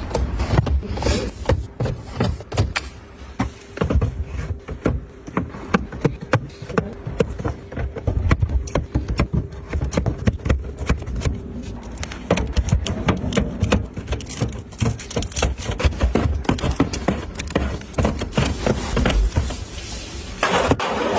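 Small paperboard drink cartons being set down and slid into rows on a cabinet shelf: a busy, irregular run of light taps, knocks and scrapes.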